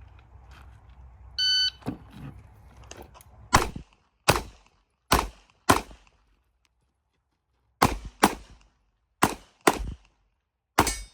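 An electronic shot timer beeps once about a second and a half in. A CZ Shadow 2 pistol then fires nine shots, mostly in quick pairs, with a pause of about two seconds after the fourth shot.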